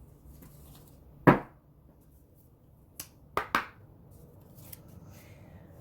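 Hands handling a tarot deck: one sharp tap about a second in, then three lighter taps close together around three seconds in.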